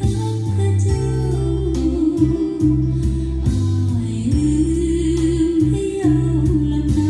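Thai song with a woman singing a slow melody over plucked strings and a steady bass line.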